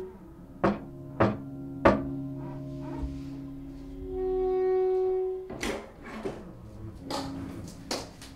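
Background music of slow, held instrumental notes, with three sharp knocks about half a second apart in the first two seconds and two brief noisy swells later on.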